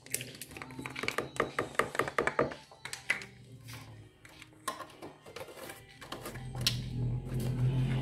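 Milk being poured into a mixing bowl of eggs, a quick run of glugging splashes, followed by scattered knocks and taps as the bowl and carton are handled. A low hum builds near the end.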